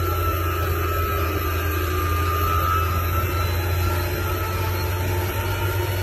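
Heavy dump truck's diesel engine running steadily as the truck, loaded with rock, pulls slowly along a dirt track: a continuous low drone with a faint high whine over it.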